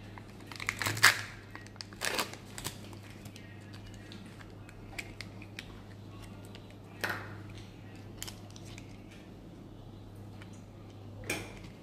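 Plastic and foil packaging of a Kinder Joy-style surprise egg being handled and opened: the foil lid crackles as it is peeled off, loudest about a second in, followed by scattered clicks and crinkles of the plastic shell and toy capsule. A steady low hum runs underneath.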